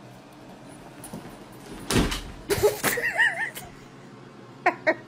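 A duffel bag with a cat inside tumbles off a bed and lands on a wooden floor with a loud thump about two seconds in, amid rustling fabric. A short wavering cry follows, and a person starts laughing near the end.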